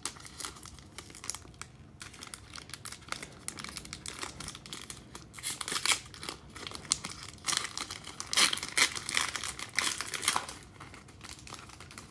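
Foil wrapper of a Panini Revolution basketball card pack being torn open by hand, crinkling and tearing in irregular crackles that grow loudest in the second half.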